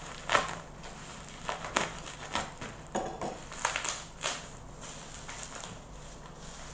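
Taped parcel wrapping being slit with a box cutter, then torn and pulled apart by hand: irregular crackling and crinkling of tape and bubble wrap with several sharp rips, easing off over the last second or two.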